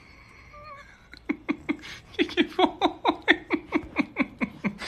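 A woman laughing in a quick, even run of short 'ha' bursts, about five a second, starting about a second in.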